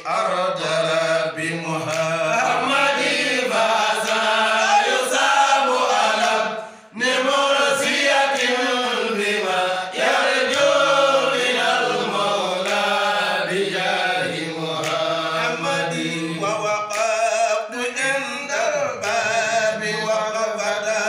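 A group of men chanting an Islamic devotional song together, a lead voice reading from a booklet with the others joining in. The singing breaks off briefly about seven seconds in, then carries on.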